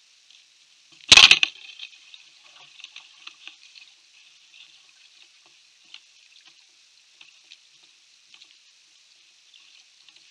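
A sharp knock on the plastic kayak about a second in, followed by faint, irregular crackling ticks.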